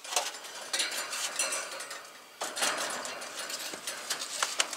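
Sheet-metal top panel of a heat pump's outdoor unit, with the fan mounted under it, being handled and tipped over. Irregular metallic clanks and rattles, with a louder clatter about halfway through.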